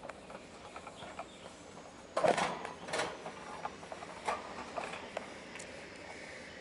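Sugar glider's claws clicking and scrabbling on the wire bars of its cage as it climbs, with a louder rattle of the wire about two seconds in.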